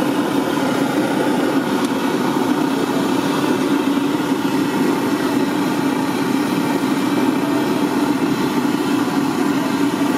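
Battered bread slices deep-frying in a kadai of hot oil: a steady sizzle and hiss over a steady low drone.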